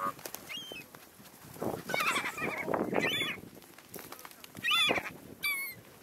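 Gulls calling at close range: a run of harsh, wavering calls, loudest about two to three seconds in and again near five seconds.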